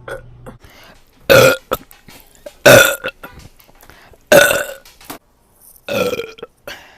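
A young woman burping: four loud, pitched burps of about half a second each, roughly one and a half seconds apart, and a fainter short burp near the end.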